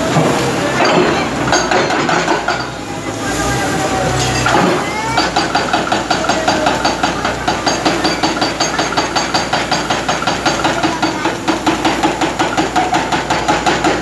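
Excavator-mounted hydraulic breaker pounding concrete rubble. From about five seconds in it hammers in a rapid, even rhythm of several ringing blows a second; before that there are irregular knocks and clatter.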